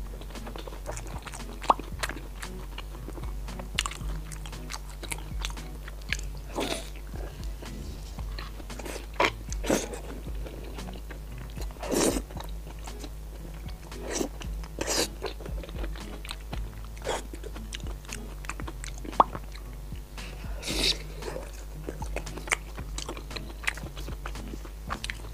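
Close-miked chewing and biting into deep-fried skewered food in sauce, with sharp crunching bites every few seconds between wetter chewing. Music plays underneath.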